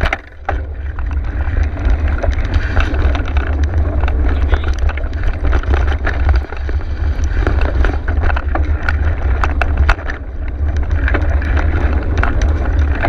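Mountain bike riding over a dirt single-track trail: a steady rumble of wind buffeting the microphone, with frequent rattles and knocks from the bike over rough ground.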